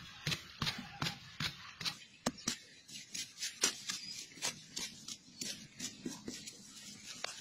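A flat hand tool scraping and digging into dry soil in quick repeated strokes, about three a second.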